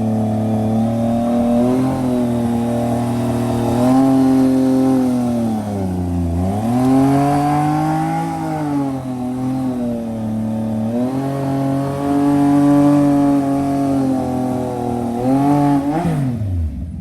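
Motorcycle engine running under way. Its pitch holds fairly steady, dips and climbs back up about six seconds in as the throttle is eased and opened again, and falls away sharply just before the end.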